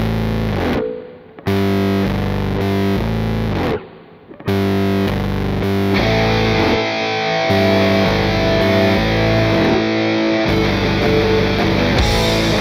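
Rock music: a distorted electric guitar playing held chords. It breaks off briefly twice in the first few seconds and grows fuller about six seconds in.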